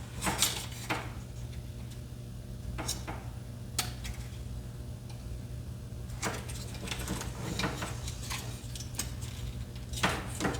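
Plastic parts of an original Xbox controller clicking and tapping as the clipped-on pieces are pried at and handled: a handful of separate sharp clicks, several seconds apart, over a low steady hum.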